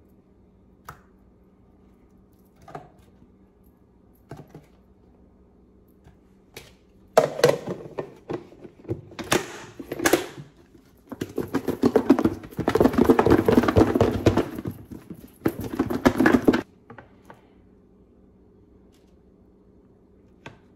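A few soft knocks, then from about seven seconds in a plastic food container with chicken wings inside is shaken hard, the wings knocking about against the plastic, for about ten seconds before it stops suddenly. The shaking coats the wings in sauce and gold paint.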